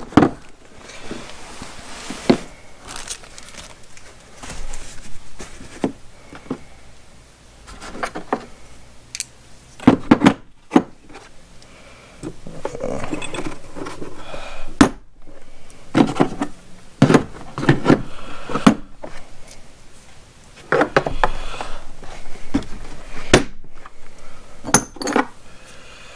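Metal brake caliper wind-back adapters and tools clattering and knocking against each other and the hard plastic case as they are lifted and set back in its tray. The knocks come irregularly, in clusters, with quieter handling between.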